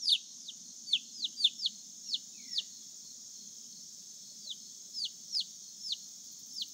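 Baby chick peeping: a run of loud, high, downward-sliding peeps, about two a second, that stops for a second or two midway and then starts again. The chick is calling for its mother hen.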